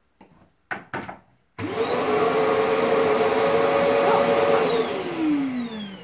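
Vax Power Stretch Pet bagless cylinder vacuum cleaner switched on about one and a half seconds in: its motor spins up quickly to a steady high whine, runs for about three seconds, then winds down with a falling whine near the end.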